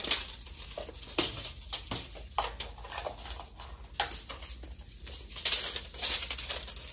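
Scattered light clicks and knocks at uneven times as a steel tape measure is handled and repositioned on a sewing machine's bed.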